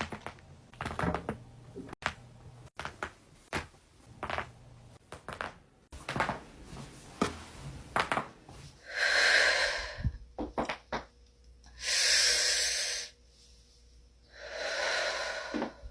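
Back being cracked: a run of sharp pops and clicks from the spine, followed by three heavy breaths, each about a second long.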